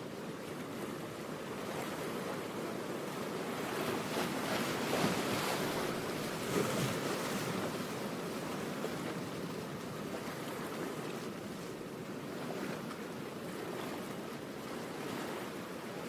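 Steady rushing noise like waves washing on a shore, swelling about five to seven seconds in and then easing back.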